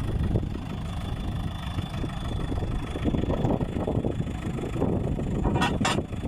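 JCB backhoe loader's diesel engine idling steadily, a machine that keeps cutting out once it runs hot. Two short sharp sounds come near the end.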